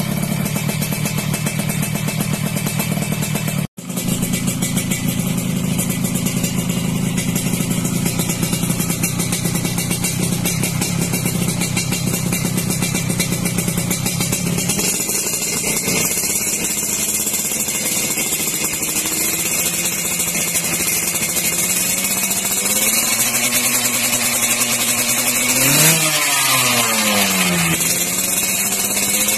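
Yamaha RX-King's 135 cc two-stroke single running through a YKJ Racing 'Phyton crome cacing' aftermarket exhaust, idling steadily with a momentary cut about four seconds in. It is revved up and down a few times near the end.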